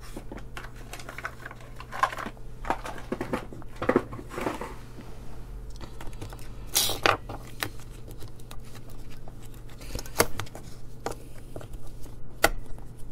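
Irregular clicks and knocks of small hard parts being handled as batteries are fitted into a battery holder, over a steady low hum.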